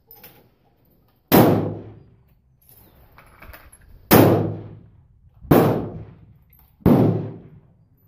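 Long-range rifle shots on the firing line: four sharp reports at uneven intervals, each dying away in an echo over most of a second, with a fifth just at the end.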